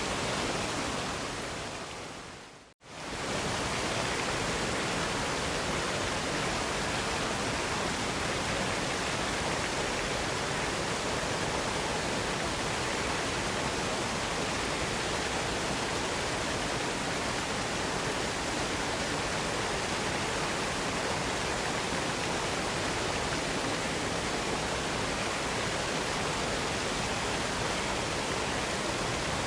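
Steady rushing of a waterfall. It fades out to near silence about two to three seconds in, then comes straight back at full level.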